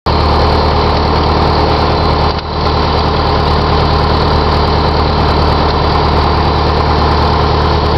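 Light aircraft's piston engine running steadily at high power for a short-field takeoff roll, heard inside the cabin, with a brief dip in loudness about two and a half seconds in.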